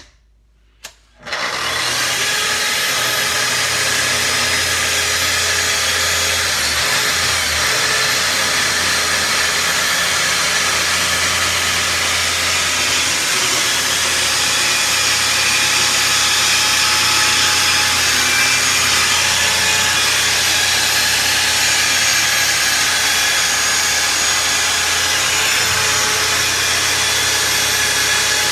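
Festool track saw fitted with a ripping blade starts about a second in and runs steadily through a long rip cut along a 2x4, loud, with its dust extractor running along with it.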